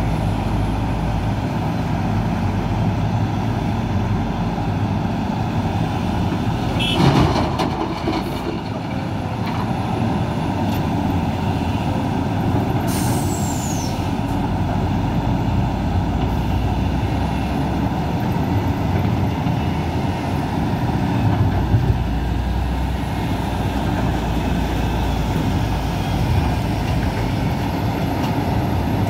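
Heavy diesel machinery of a Hidromek 500LC excavator loading a ten-wheel dump truck: engines running steadily under load. There is one loud sudden burst about seven seconds in and a brief falling high whistle a few seconds later.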